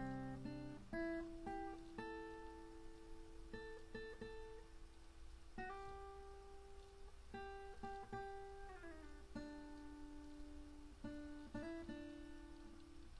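Acoustic guitar playing an instrumental passage, picked notes and chords ringing on, with the notes sliding down in pitch about nine seconds in.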